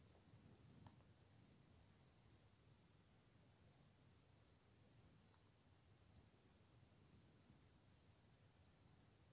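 Near silence: faint room tone with a steady high-pitched hiss, and one faint click about a second in.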